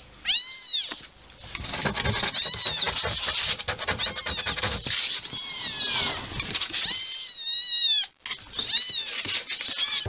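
Young kittens mewing repeatedly: about seven short, high-pitched mews that rise and fall, with soft clicking and rustling in between.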